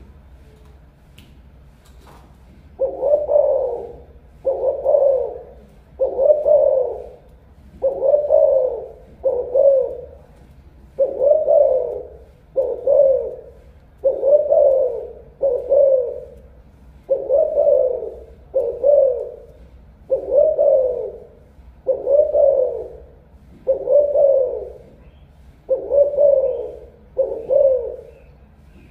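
Caged spotted dove cooing over and over: a steady series of low coos, beginning about three seconds in, one every one and a half to two seconds, some coming in closer pairs.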